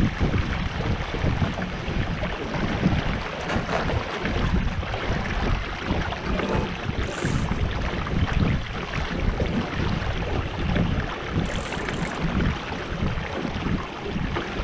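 Wind buffeting the microphone over water rushing and lapping along the hull of a Finn dinghy under sail.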